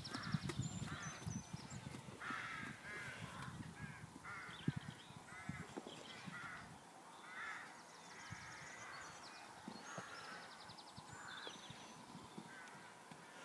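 Crows cawing over and over, harsh calls following one another throughout, with dull thuds of a horse's hooves on the sand arena in the first couple of seconds.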